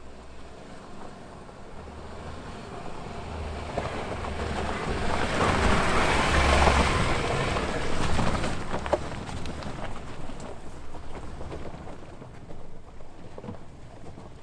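An off-road 4x4 driving past through mud, its engine and tyre noise building to a peak about six to seven seconds in, then fading away.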